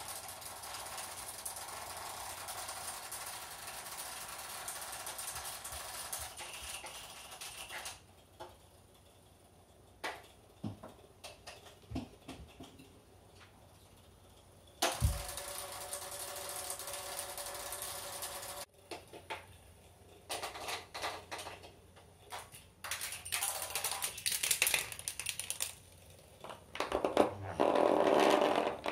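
Motor of a Petio Wild Animal battery-powered plush panda toy running in stop-start spells: a steady mechanical whir that cuts off about eight seconds in, runs again for a few seconds around the middle, then comes in short irregular bursts near the end. A few soft knocks fall in the quiet stretch between.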